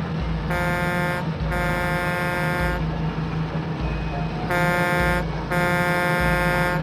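Sound effect of a truck: an air horn honks four times in two pairs, a short blast then a longer one, over a steady engine hum.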